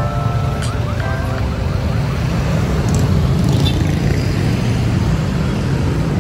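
Steady low rumble of road traffic during a city bicycle ride, with background music over the first second or so.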